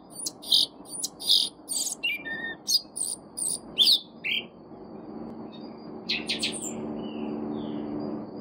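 Caged sabiá-preta (black thrush) singing: a quick run of short, sharp whistled and chirping notes for about four seconds, then a brief burst again about six seconds in. A low steady hum runs underneath.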